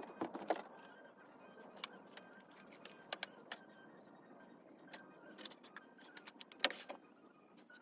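Scattered light clicks and taps of hard objects being handled, with the loudest tap near the end, over faint background noise.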